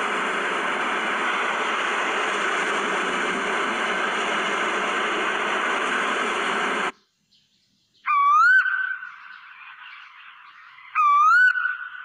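A steady rushing noise stops abruptly about seven seconds in. Then an Asian koel calls twice, about three seconds apart, each call a loud rising whistle.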